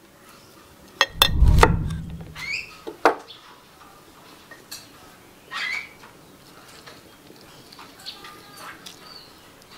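Metal spoon clicking and scraping against a stone mortar as grated-coconut seasoning is mixed. A dull, heavy thump comes about a second and a half in, with a few sharp clicks around it and another about three seconds in, then lighter handling sounds.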